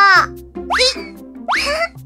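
Cartoon background music with two quick upward-sliding, boing-like sound effects, about three-quarters of a second apart.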